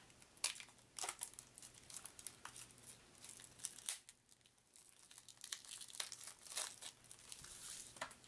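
Plastic wrapping crinkling and tearing as it is pulled off a stack of board-game cards, in irregular crackles with a short lull about halfway through.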